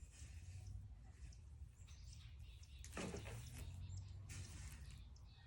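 Backyard hens making faint calls and sounds as they move about, over a low steady rumble, with one sharper sound about three seconds in.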